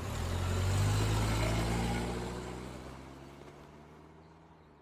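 Car engine running as the car drives off, loudest about a second in and then fading steadily away.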